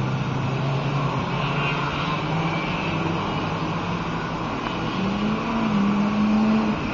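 Car engine running on a race circuit, its note steady at first and rising in pitch about five seconds in.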